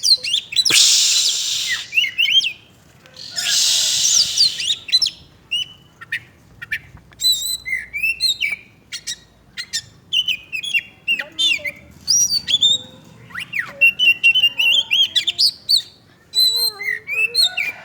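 Oriental magpie-robin singing a rapid, varied song of whistles, chirps and quick trills, with two harsh hissing bursts in the first few seconds.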